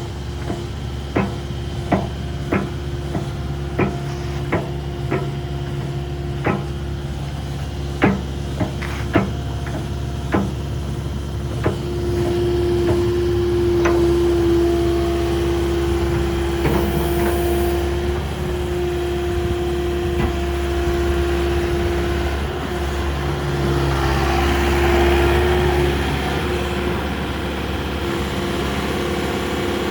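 Kubota KX080 midi excavator running with a steady engine hum. Sharp knocks come about every half second to a second for the first dozen seconds, then stop. A steady humming tone then joins and the sound gets a little louder.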